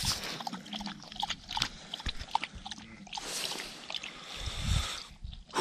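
A dog lapping river water, a run of many quick, uneven wet laps.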